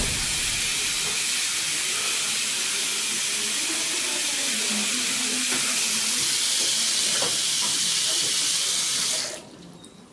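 Water running steadily from a tap into a sink, a hissing rush that cuts off abruptly about nine seconds in.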